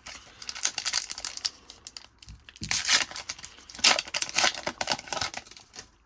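Foil trading-card pack being torn open and its wrapper crinkled, in several bursts of crackly rustling.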